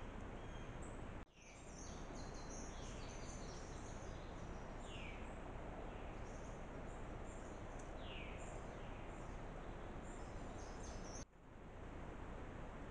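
Birds chirping and trilling over a steady hiss, with two clear downward-sliding calls partway through. The sound drops out abruptly about a second in and again near the end.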